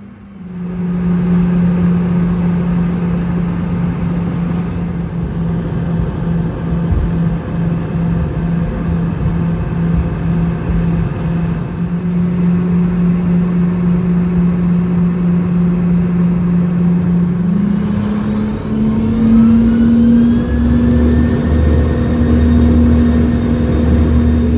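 Boeing 717's rear-mounted Rolls-Royce BR715 turbofan engines heard from inside the cabin, running with a steady hum, then spooling up with rising whines about three-quarters of the way through as takeoff thrust is set, joined by a low rumble of the takeoff roll.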